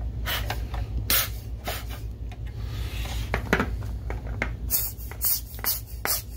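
Air blower puffing air in repeated short hissy bursts, coming quicker in the second half, over a steady low hum.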